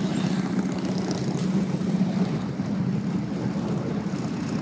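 An engine running with a steady low drone that holds an even pitch throughout.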